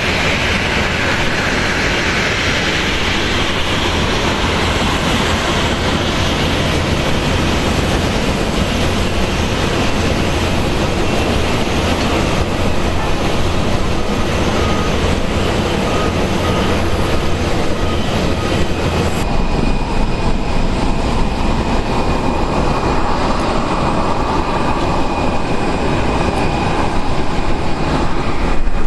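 Boeing 737-800 jet engines running, a loud steady rush of noise; about two-thirds of the way through the sound changes abruptly, losing its hiss.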